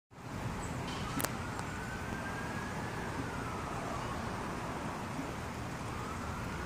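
Faint emergency-vehicle siren wailing slowly up and down over a steady background hiss of street noise, with a single click about a second in.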